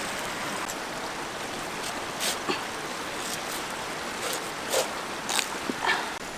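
Running water, a steady rushing stream. From about two seconds in, several short knocks and clatters sound over it.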